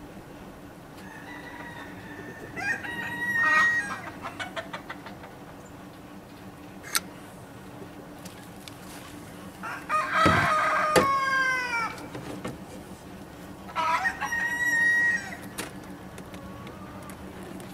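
Roosters crowing three times: once a few seconds in, loudest about ten seconds in with a falling tail at the end of the crow, and again about fourteen seconds in. A sharp click about seven seconds in.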